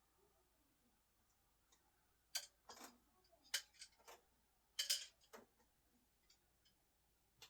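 A quick run of about six sharp clicks and knocks over three seconds, from flathead screwdrivers knocking against each other or against a hard surface.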